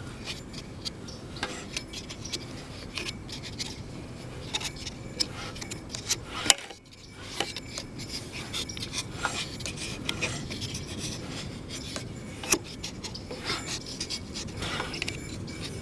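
Metal hand tools clicking and scraping against a lawn mower engine that has its cylinder head off, with many small irregular clicks and one sharp, louder click about six and a half seconds in.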